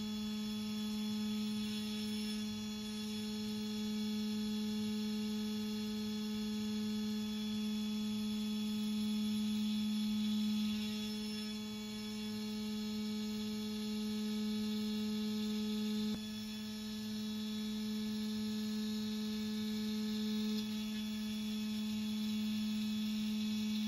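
Makera Carvera Air desktop CNC's spindle turning a single-flute carbide end mill at 12,000 RPM, slotting 1/8-inch 6061 aluminum plate at a shallow progressive step-down. A steady low hum with a higher whine over it, swelling and easing slightly as the cutter goes back and forth along the slot.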